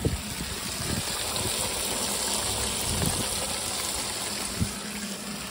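Water spraying in a steady hiss from a rusted-through hole in an outdoor wood boiler's water jacket, gushing out after the corroded spot was touched. A single light knock near the end.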